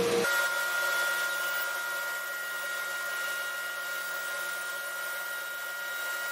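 Table-mounted router running at speed with a steady, high-pitched whine while a workpiece is fed past the bit. The whine sets in about a quarter second in.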